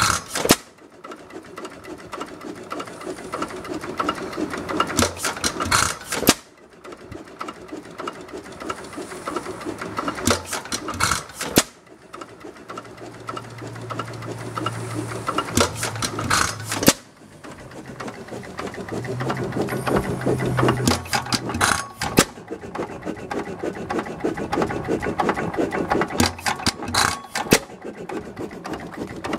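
1917 Waterloo Big Chief 4.5 HP single-cylinder hit-and-miss engine running on petrol, with its low-tension magneto ignition. It fires a short cluster of sharp strokes about every five to six seconds and coasts between them, with a fast mechanical clatter throughout: the governor holding it at speed by skipping firing strokes.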